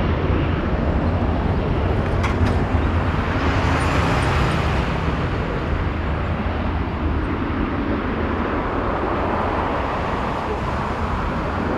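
Boeing 737-400 freighter's CFM56 jet engines running as the aircraft rolls along the runway: a steady, loud rumble with a noisy hiss on top. It eases off gradually as the jet moves away.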